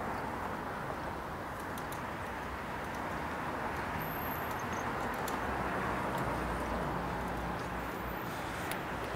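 Steady city traffic noise, with a low rumble that swells for a few seconds in the middle and a few faint scattered clicks.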